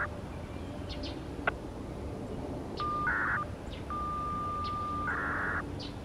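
Siren-system radio signalling heard through a Uniden Bearcat BC125AT scanner: a steady beep, each time cut off by a half-second burst of data noise. A short beep and burst come about three seconds in, and a longer, second-long beep and burst follow about a second later. Faint bird chirps sound in the background.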